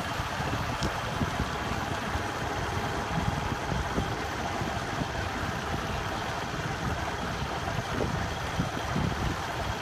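Motorbike running at low speed, with a steady rush of wind and road noise over a low, irregular rumble on the phone microphone.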